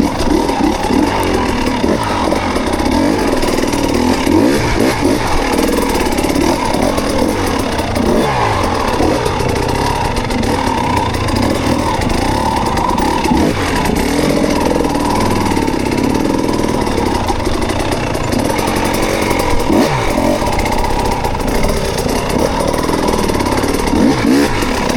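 Off-road motorcycle engine running under load, its revs rising and falling again and again as it is ridden over rough ground.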